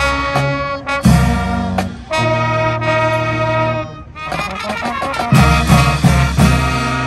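Marching band playing live: brass holding loud chords over sousaphone bass, with drum hits. The sound thins out for a moment about four seconds in, then the full band comes back in with drum hits.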